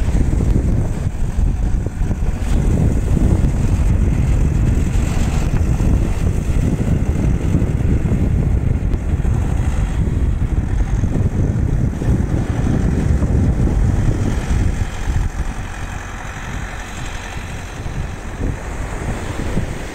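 Farm tractor engine running as it works across the beach sand, a steady low rumble mixed with wind buffeting the microphone; it eases a little about fifteen seconds in.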